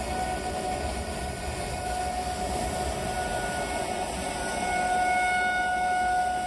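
Outdoor tornado warning siren sounding one steady tone, swelling louder about five seconds in, over a low rumble.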